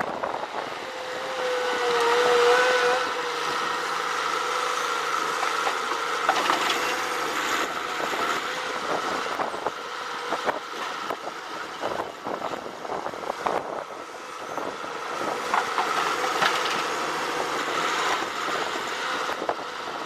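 A heavy machine's engine running steadily, with scattered sharp knocks and cracks. The engine is loudest about two to three seconds in.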